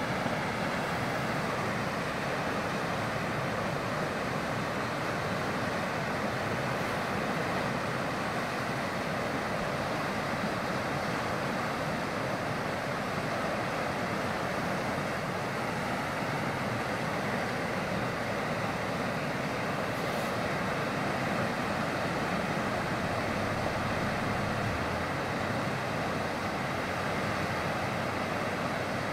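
Flooded creek running high and fast with muddy monsoon runoff: a steady, unbroken rush of water.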